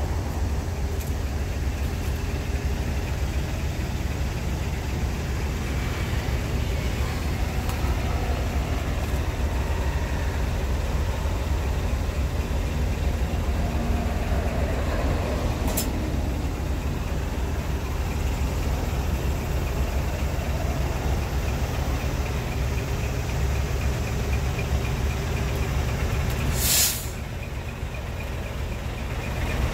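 Large truck's diesel engine idling steadily, with a short, loud air-brake hiss near the end.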